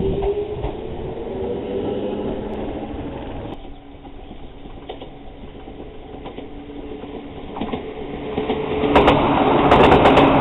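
Echizen Railway electric train pulling away, its traction motor whine rising in pitch and then levelling off. After a cut, another electric train approaches and passes close by, growing loud near the end with its wheels clattering over the rail joints.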